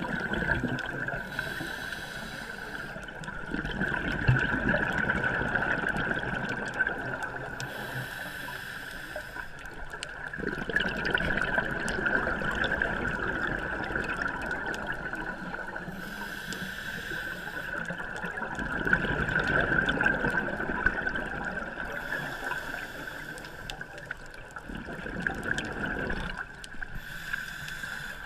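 Scuba diver breathing through a regulator underwater: a burst of exhaled bubbles about every five to six seconds, alternating with quieter rushing between breaths, over a steady high hum.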